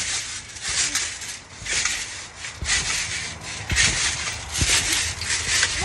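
People bouncing on a trampoline: a run of rhythmic swishes about twice a second, with a few dull thumps from the mat.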